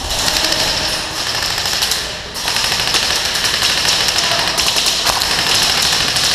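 Airsoft electric guns firing on full auto in rapid bursts, a dense run of clicks with a short pause a little over two seconds in.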